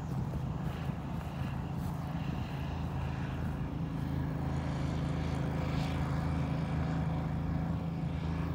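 Steady low engine drone at a constant pitch, holding unchanged, then cutting off suddenly at the very end.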